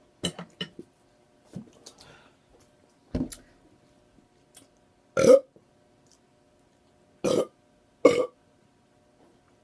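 A person burping in a string of short, loud belches, about five in all, spaced a second or two apart. The loudest comes a little past halfway.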